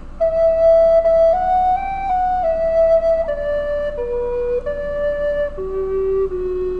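Background music: a slow solo melody of held notes, one after another, stepping up and then down, settling lower near the end.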